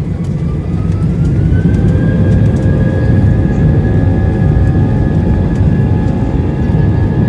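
Airbus A320's IAE V2500 jet engines spooling up over a loud rumble: a whine rises in pitch during the first two seconds, then holds steady as the engines settle at higher thrust.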